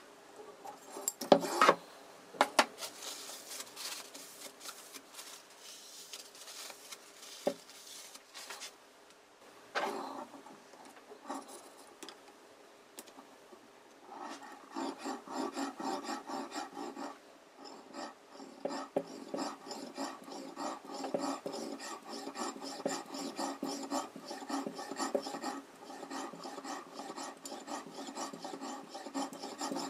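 Oil whetstone rubbed back and forth along a steel kitchen knife's edge on a guided sharpening system, a gritty scraping. After scattered strokes and a few knocks in the first half, steady, rapid back-and-forth strokes run from about halfway through.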